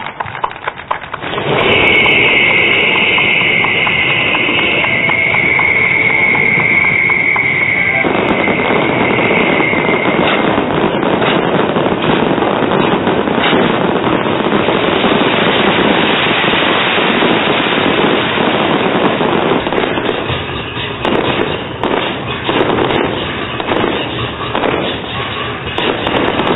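Long strings of firecrackers crackling densely and without a break, after a short burst of applause at the start. Music runs underneath, with two high held tones over roughly the first ten seconds.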